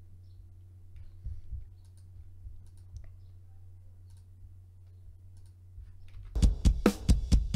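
Faint computer-mouse clicks over a low steady hum. About six seconds in, playback of a metal mix starts loudly: a drum kit with kick, snare and cymbals hitting in a fast regular beat.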